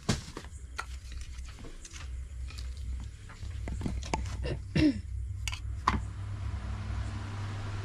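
Light clicks and taps of a steel spoon against a steel plate and the handling of momo wrappers while chicken filling is spooned in, over a steady low hum. A couple of brief vocal sounds come in around the middle.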